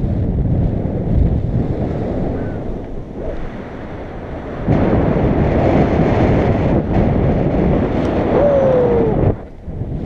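Wind rushing over an action camera's microphone in paragliding flight: a loud, steady low rush that eases a few seconds in and comes back suddenly about halfway. A brief falling tone sounds near the end.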